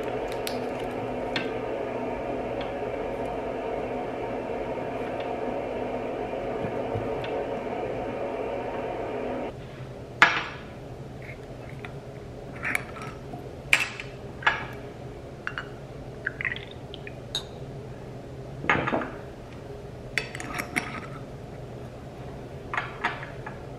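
A steady hum for the first nine seconds or so, which stops suddenly. Then a series of sharp glass clinks and taps: a glass juice bottle being uncapped and poured into a small shot glass, and glass set down on a countertop.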